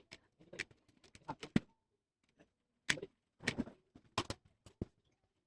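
Irregular sharp clicks and light taps, a dozen or so spread over a few seconds with short pauses between them: plastic and small tools being handled while a laptop is taken apart.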